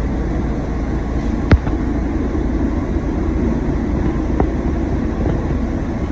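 Steady low rumble and rush of a paint spray booth's ventilation airflow, with a sharp click about a second and a half in and a fainter one a few seconds later.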